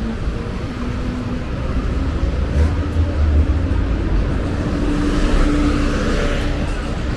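City street traffic: a motor vehicle's engine hum that slowly rises in pitch over low road rumble, with a vehicle passing close by about five to six seconds in.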